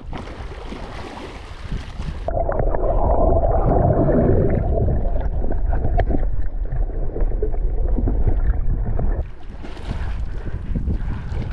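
Water splashing and wind on the microphone at the surface, cutting about two seconds in to muffled underwater churning and bubbling of a swimmer moving in the water, heard through a submerged camera; the open-air splashing and wind return near the end.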